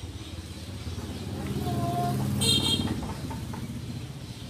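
Motor vehicle going past: its engine rumble swells to a peak about two seconds in, then fades. There is a brief toot midway and a short high-pitched sound just after.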